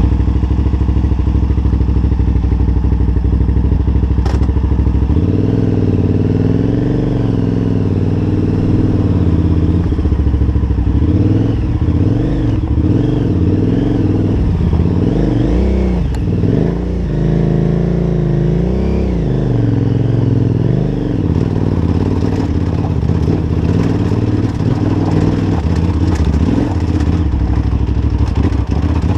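KTM 990 Adventure's V-twin engine under way on a rocky climb: steady at first, then from about five seconds in its pitch rises and falls again and again as it revs up and eases off.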